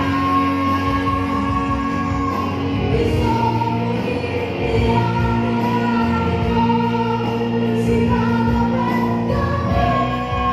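Music: a voice singing slow, long held notes over instrumental accompaniment.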